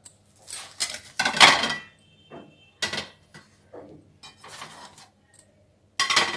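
Plates clinking and clattering against a stainless steel dish rack as they are set into its slots one by one. The sound comes in several separate bursts with brief ringing, the loudest about a second and a half in.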